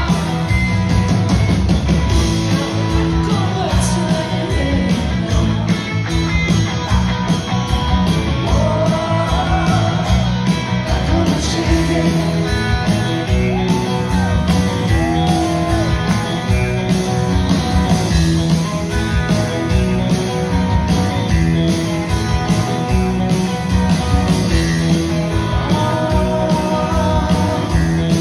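Live rock band heard from the audience: electric guitars, bass and drums playing a song, with a woman's lead vocal coming in at several points.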